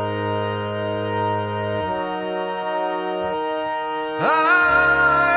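Background music: long sustained chords that change twice, then a high melody line that slides up into a long, wavering held note about four seconds in, where the music gets louder.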